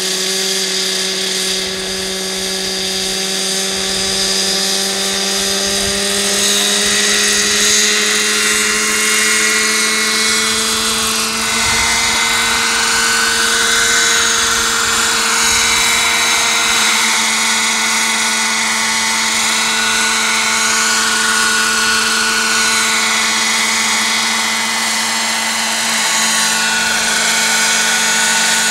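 Radio-controlled scale model Robinson R22 helicopter's motor and rotors running. The pitch climbs slowly over the first several seconds, then wavers up and down as the model hovers low.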